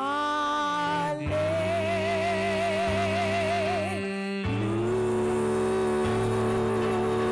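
A woman singing a gospel worship song into a microphone, holding long notes with a wide vibrato over sustained backing chords that change twice.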